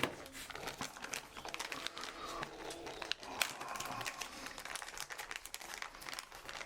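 Plastic packaging crinkling and rustling as it is handled, a dense run of small sharp crackles.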